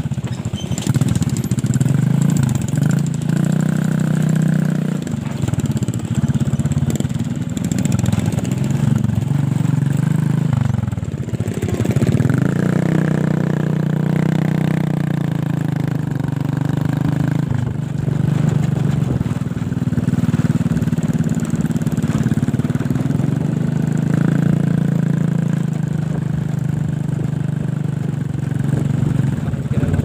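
Small motorcycle engine running at riding speed, its pitch drifting up and down a little as the throttle changes.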